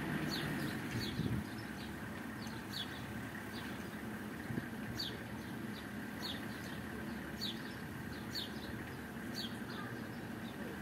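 Small birds chirping, short high chirps a couple of times a second, over a steady background hum. A low vehicle engine rumble drops away about a second and a half in.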